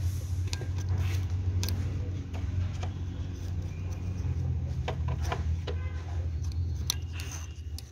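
A screwdriver tip tapping and scraping on the aluminium compressor wheel blades of a diesel turbocharger as it is checked by hand, making scattered light clicks over a steady low hum.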